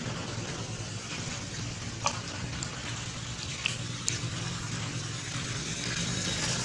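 Rain falling on a flooded stream: a steady hiss of water with a few louder drops splashing about two and four seconds in, over a low steady hum.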